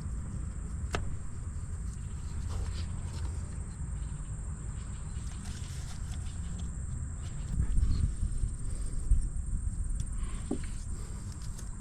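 Scattered small clicks and knocks of hands and tools working the camshaft position sensor loose and out of its bore in the engine, over a steady low rumble and a thin, steady high tone. The low rumble swells louder briefly about eight and nine seconds in.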